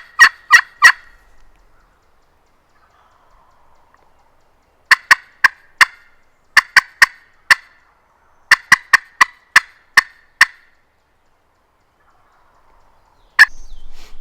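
Hen turkey yelps on a hand-worked turkey call, loud and close, in short runs of sharp notes about three a second: one run at the start, three more between about five and ten and a half seconds in, and one single note near the end.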